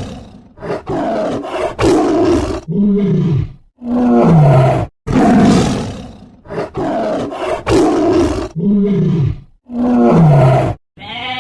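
A big cat roaring over and over, about one loud roar a second, several of them trailing off in a deep falling moan.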